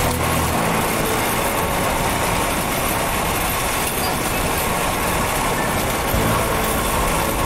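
Small motor-vehicle engine running steadily while riding, most likely a motorcycle with a sidecar (tricycle), mixed with loud, even rushing wind and road noise.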